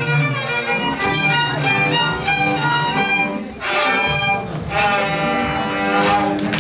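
Two violins and a cello, played by children, performing a bowed string piece together, with a brief pause between phrases about three and a half seconds in.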